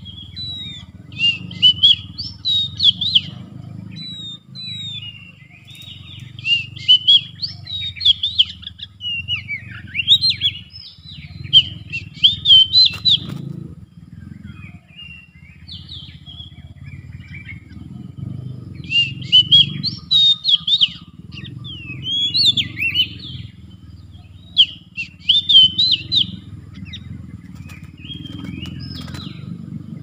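Oriental magpie-robin singing: bursts of varied, rising and falling whistles mixed with harsh scratchy notes, each phrase one to three seconds long, repeated every few seconds, over a steady low rumble.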